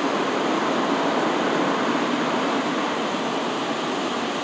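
Automatic car wash water spraying over the car, heard from inside the cabin as a steady rushing hiss.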